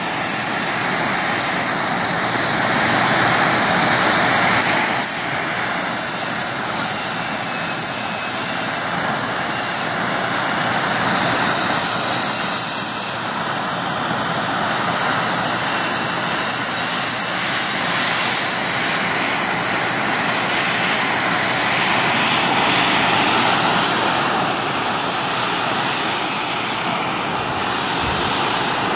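Gas torch flame hissing steadily as it is played over raw steel to bring up blue and brown heat colours, rising a little in loudness now and then as the flame moves.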